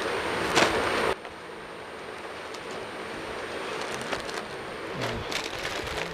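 Clear plastic garment packaging crinkling and rustling as wrapped clothes are handled, loudest about half a second in. The sound drops abruptly at about a second, then carries on more quietly with a few sharper crackles.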